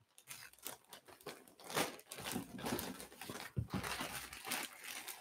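Clear plastic bag crinkling and rustling as hands handle the jersey packed inside it, a run of irregular crackles.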